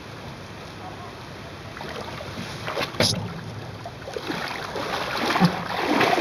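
Wind and water noise around a Grumman aluminium sailing canoe under way, quiet and steady at first, then growing louder from about two seconds in. A sharp knock comes about three seconds in, and a few short thumps follow near the end.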